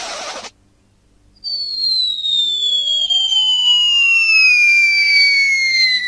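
A brief hiss right at the start, then a long whistle sound effect that glides steadily down in pitch for about five seconds, with fainter sliding tones around it, in the manner of a cartoon falling-object whistle.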